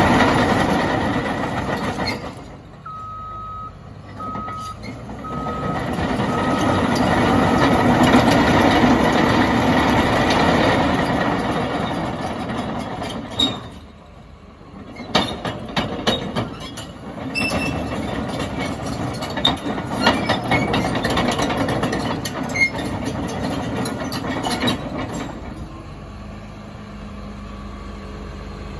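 Cat D6T LGP crawler dozer manoeuvring on its steel tracks, its diesel engine running under load. The reverse alarm beeps five times a few seconds in. Later there is a run of sharp clanks, and near the end it settles to a quieter, steady running sound.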